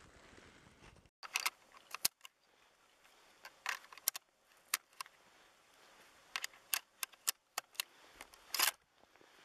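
Irregular sharp metallic clicks and clinks of a brass rifle cartridge being handled and set into the open action of a Blaser rifle, with a louder, longer clack near the end.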